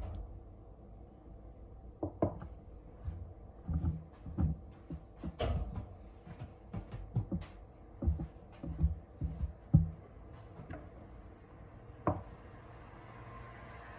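Irregular series of small knocks, taps and clicks, as of household objects being handled and set down, with a few dull low thumps.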